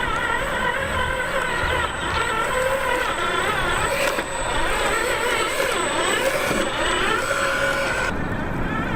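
Electric motor and gear drive of an RC4WD remote-control truck whining as it is driven, its pitch wavering up and down with the throttle. The sound changes abruptly near the end.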